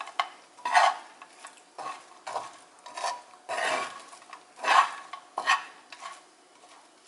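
Spatula stirring and scraping small dried anchovies around a frying pan: a series of about eight irregular scraping strokes, roughly one a second, growing fainter near the end.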